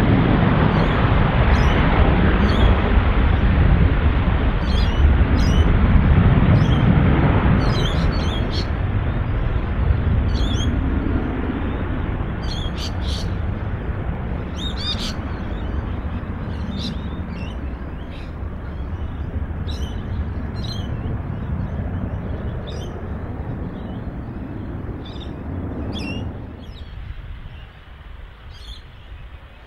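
Jet airliner engine rumble fading steadily as the aircraft moves away, dropping off sharply near the end. Small birds chirp throughout.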